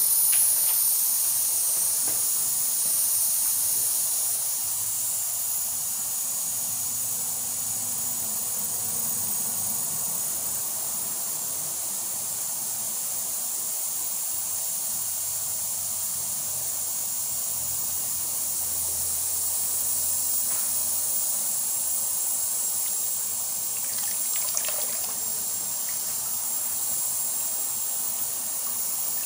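Steady hissing rush of running water at a hydrographic dip tank.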